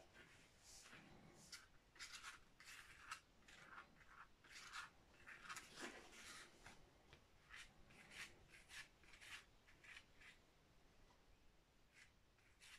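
Faint, irregular scratchy strokes of paint being applied to paper, about one or two a second.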